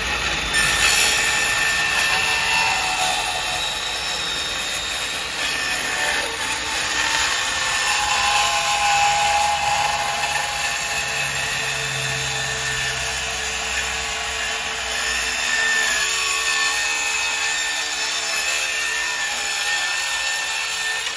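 DeWalt Atomic 20V brushless 4-1/2-inch cordless circular saw running at full speed and cutting all the way through a 3/4-inch plywood sheet in one long continuous cut. It stops abruptly near the end.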